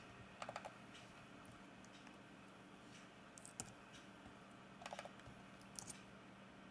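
A few faint computer mouse and keyboard clicks in short clusters, about half a second, three and a half, five and six seconds in, over a faint steady hum.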